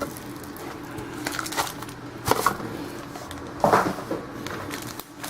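Quiet handling of trading cards and foil pack wrappers: a few short rustles and taps, about a second apart, over a faint steady hum.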